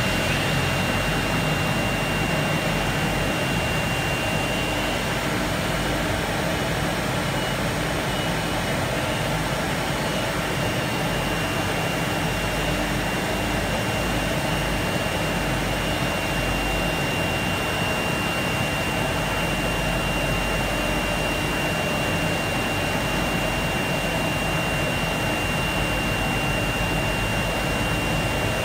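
Chencan CC-M1325AS4 multi-spindle CNC router cutting a wooden panel: the spindle's steady high whine over the loud, even rushing noise of the cut, unchanged throughout.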